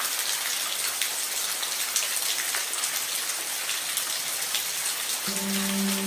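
Steady rain falling, an even hiss with individual drops ticking through it. Near the end a low held tone with overtones comes in under the rain.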